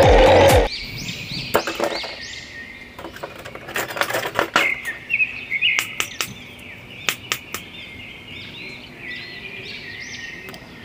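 Electronic music cuts off suddenly under a second in. After it come scattered sharp clicks and taps of small plastic action figures being handled, with birds chirping in the background.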